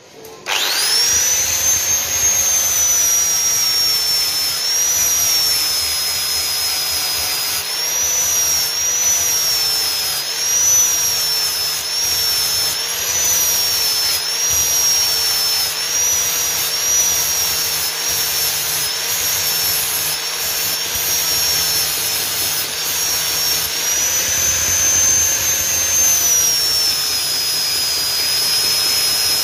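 An electric angle grinder is switched on about half a second in and whines up to speed. It then grinds metal, its pitch sagging and recovering about once a second as the disc is pressed into the work.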